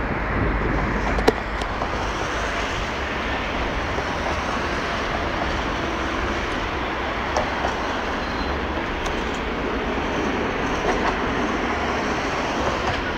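Steady rumble and hiss of traffic crossing a road and tram bridge, with a single sharp click about a second in.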